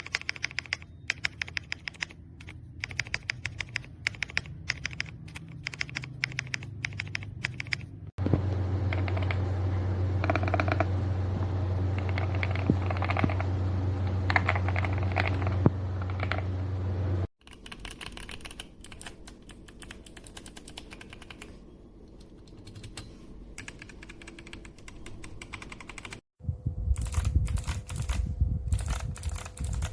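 Typing on a mechanical keyboard fitted with Kailh Box White clicky switches: fast runs of crisp clicks. The recording cuts between several takes, one of them with a steady low hum under the typing.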